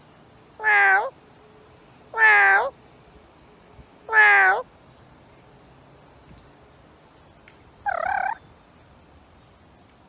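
Yellow-headed Amazon parrot calling: three loud drawn-out calls about a second and a half apart, then a shorter wavering call near the end.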